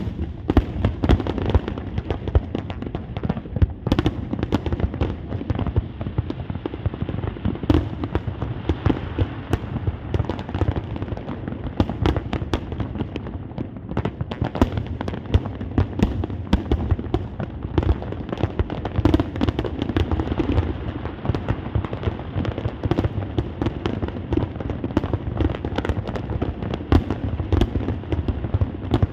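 Fireworks display going off in a dense barrage: rapid, overlapping bangs and crackling, with louder single booms standing out every second or two.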